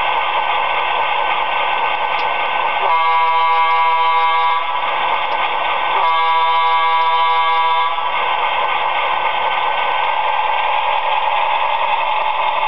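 QSI Quantum sound decoder in an HO-scale E7 diesel model playing a steady diesel engine running sound through its small speaker. About three seconds in, and again about six seconds in, the model's multi-chime air horn sounds two long blasts.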